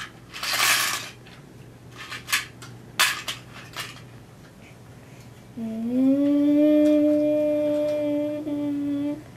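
Hard toy pieces clattering in a few sharp clicks and knocks, then a child hums one long steady note, sliding up at the start and held for about three and a half seconds.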